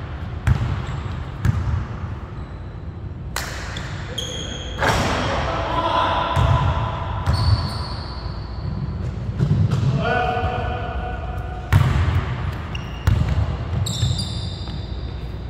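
A basketball bouncing on a hardwood gym floor at irregular intervals, with short squeaks of sneakers on the boards, echoing in a large hall.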